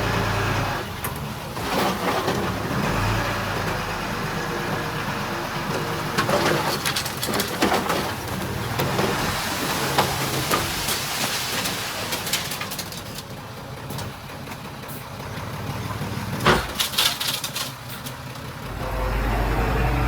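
Diesel earthmoving machinery at work: a low engine hum with bursts of metallic clanking and rattling, the loudest clanks about three-quarters of the way through.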